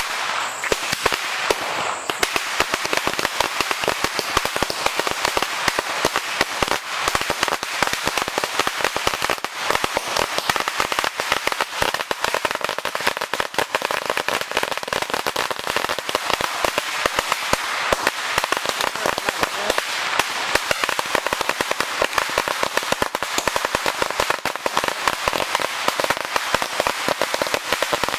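A Standard Fireworks 1000-wala string of firecrackers going off: a rapid, unbroken chain of sharp bangs, many a second, running through the whole chain.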